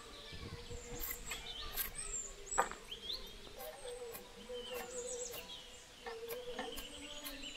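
Birds chirping, with scattered sharp knocks and clicks, the loudest about two and a half seconds in.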